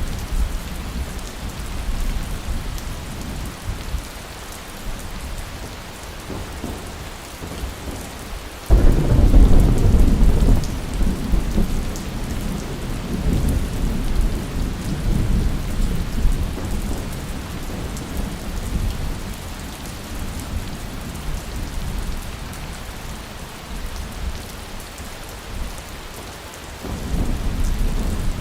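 Steady heavy rain with thunder: a sudden loud thunderclap about nine seconds in that rumbles away over the following seconds, and another roll of thunder starting near the end.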